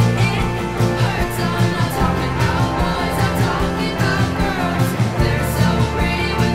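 Background song with a sung vocal over a band and a steady drum beat.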